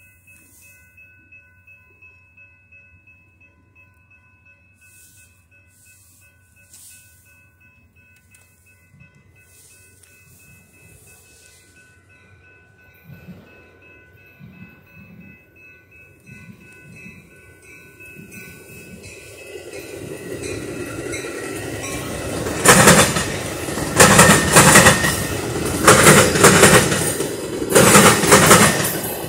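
Metra commuter train of stainless-steel bilevel cars approaching and passing, growing louder from about two-thirds of the way in, then a loud, even clickety-clack of the wheels over the rail joints through the last several seconds.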